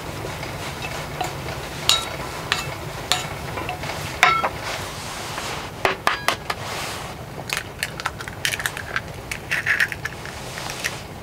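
Stainless steel bowl clinking with short ringing notes four times, then a quick run of clicks and taps as the food in it is stirred and mixed.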